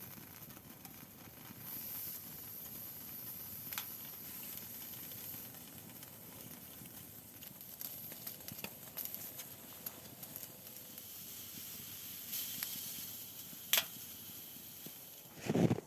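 Meat frying in a hot pan: a steady sizzling hiss with a few sharp pops. A louder low rustle or thump comes right at the end.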